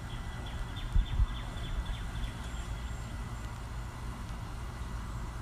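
Outdoor ambience: a steady low rumble with two soft thumps about a second in, and faint high chirps over the first couple of seconds.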